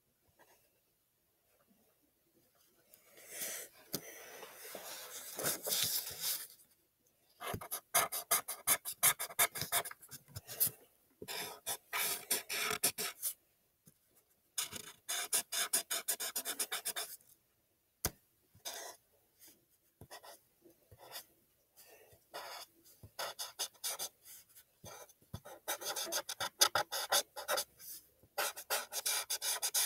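Thick black marker scratching across paper in quick back-and-forth strokes while colouring in. After about three seconds of near quiet, the strokes come in bursts separated by short pauses.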